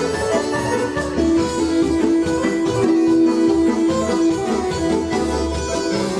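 Live dance band music with a pulsing bass line and plucked-string and keyboard parts; one long high note is held from about a second in.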